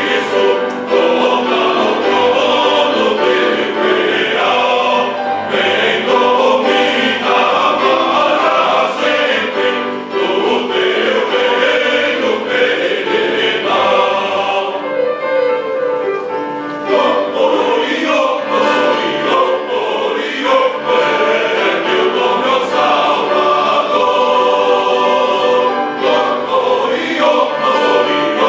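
A church choir singing a hymn in parts with accompaniment. The texture thins briefly about halfway through, then the full choir comes back in.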